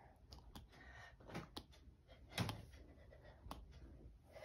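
Near silence with low room hum, broken by a few faint, brief clicks and soft knocks, the loudest about halfway through.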